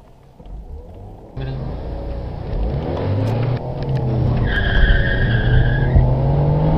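Car engine at full throttle accelerating from a standstill, its pitch climbing, getting suddenly louder about a second and a half in. A high, steady squeal joins for about a second and a half midway.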